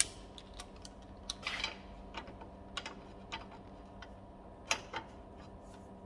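Light, irregular clicks and taps of metal oil cooler pipes and fittings being handled and set in place, over a steady faint hum. There is a sharp click at the start, a quick cluster of taps a little over a second in, and two louder knocks close together near the end.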